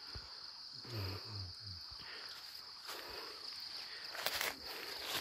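Steady high-pitched drone of insects in the background, with scuffing footsteps and a louder rustle and knock about four seconds in as people walk a rough path. A faint voice murmurs about a second in.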